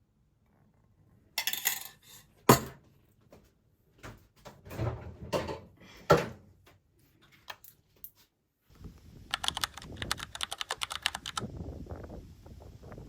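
Light clicks, taps and knocks from kitchen utensils and dishes being handled, ending in a quick run of rapid clicks.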